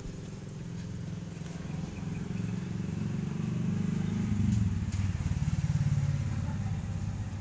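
A motor engine running with a low, rapid pulsing hum, getting louder about halfway through and then easing off.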